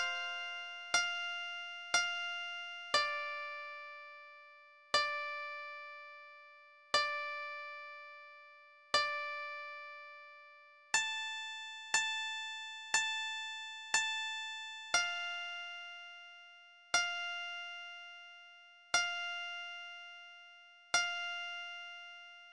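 Slow computer-generated melody of single plucked notes on a synthesized shamisen voice (General MIDI program 107), one note every one to two seconds, each note struck sharply and dying away.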